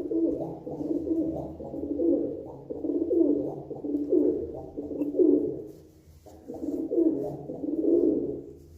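Domestic pigeon cooing: a run of low, repeated coos about one a second, with a short break about six seconds in.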